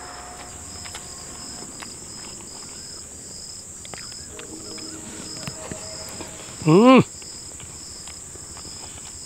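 Crickets chirping steadily: a high continuous trill with a pulsed chirp about twice a second. About seven seconds in, a person lets out a brief rising-and-falling hum, like an appreciative 'mmm' while eating.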